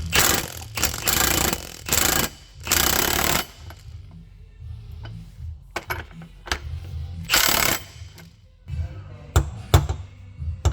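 Background music, broken by several short, loud bursts of a power tool running in the shop: a cluster in the first few seconds and one more about seven seconds in.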